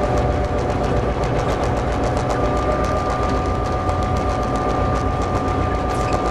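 DSB MY diesel-electric locomotive's GM-EMD 567 V16 two-stroke diesel running steadily under way, heard from inside the cab over the rumble of the moving train. A steady whine runs through it, and a second, higher tone joins about two and a half seconds in.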